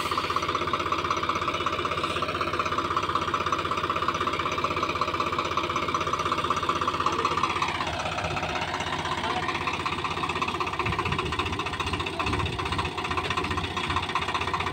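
Swaraj 735 XT tractor's three-cylinder diesel engine running steadily under load while the tractor is stuck in sand with a loaded trolley. About halfway through, its note drops in pitch and it runs on at the lower speed.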